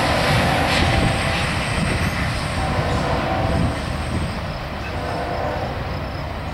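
Tail end of a freight train rolling past, with the steel wheels of a gondola and a caboose rumbling on the rails. The noise eases off a little past halfway as the caboose moves away.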